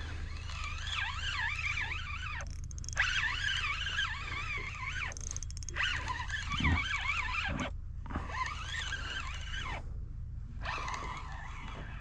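Fishing reel being cranked in bursts of about two seconds while fighting a fish on a bent rod. Its gears give a whine that wobbles in pitch with the cranking, over a steady low hum.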